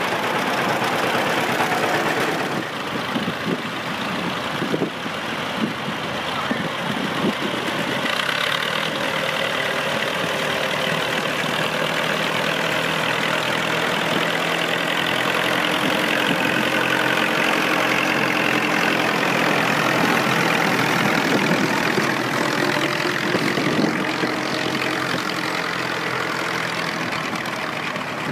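Vintage tractor engines running at low, steady speed as several old tractors pass one after another. The first is a John Deere two-cylinder, with uneven knocking in the first few seconds, followed by a steady engine drone from the tractors behind it.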